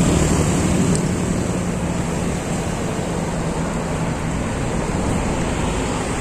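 Road traffic passing through a bend: cars, motorcycles and a bus, heard as a steady rushing noise, with a low engine hum in the first couple of seconds.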